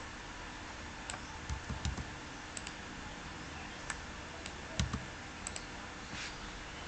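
Scattered computer keyboard keystrokes and mouse clicks over a steady faint background hiss, a cluster of them around one and a half to two seconds in and the loudest near five seconds.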